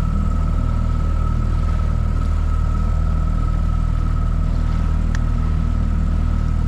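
Outboard motor of a small inflatable boat running steadily at trolling speed, a low, even drone with a steady high whine over it. A single brief click about five seconds in.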